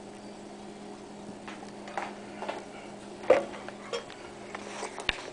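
Light clicks and knocks of the plastic microwave fry-maker trays being handled, scattered and irregular, the loudest about a third of the way from the end, over a steady low hum.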